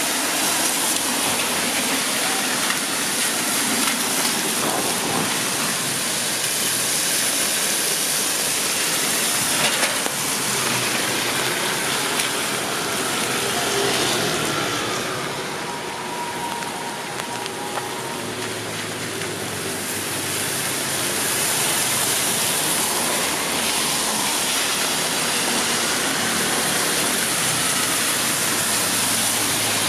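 Steady rain hissing, which grows quieter and duller for a few seconds about halfway through. A faint low steady hum joins in the second half.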